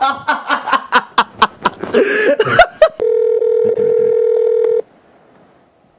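A person laughing in short rhythmic bursts, then a steady electronic tone from a cordless phone handset that lasts almost two seconds and cuts off abruptly.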